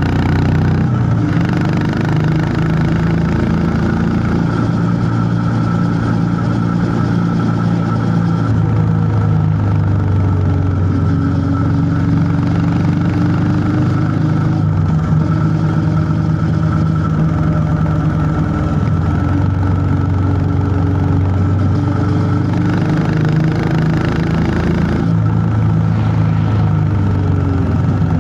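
Honda CB350 H'ness's single-cylinder engine running under way on a ride, its thumping note rising and falling several times as the bike speeds up and eases off.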